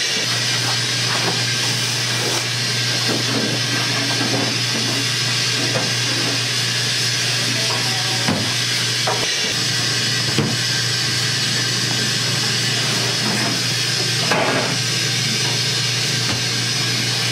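Dumpling-shop kitchen ambience: a steady hiss over a constant low hum, with scattered light knocks on wood and a few sharper knocks about 8, 10 and 14 seconds in.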